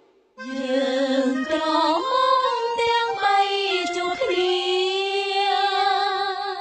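A woman singing a high melody with slides between notes and long held notes that waver, starting about half a second in.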